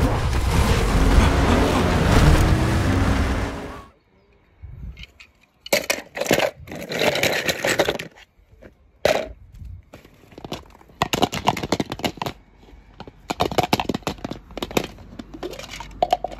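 Loud animated-film soundtrack that cuts off abruptly about four seconds in. Then die-cast toy cars clatter and click against one another and a plastic tub in short bursts, with plastic clicks as a capsule egg is handled near the end.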